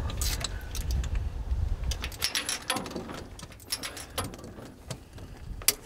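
Socket ratchet clicking in short runs, with metallic clinks of the tool, as spark plugs are threaded back into the engine.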